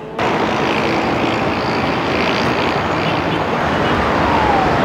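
Steady loud roar of road traffic that cuts in suddenly at the start, with a siren's falling wail near the end.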